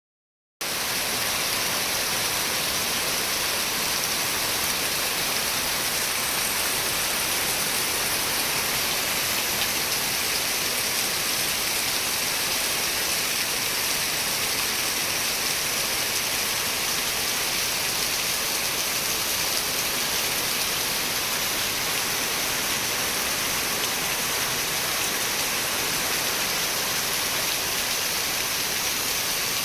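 Steady rain: an even, unbroken hiss of falling drops with no change in strength, starting about half a second in.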